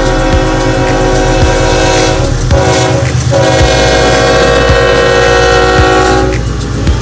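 Locomotive horn sounding two long blasts, with a short break about two and a half seconds in. The second blast stops about six seconds in, over the low rumble of the train.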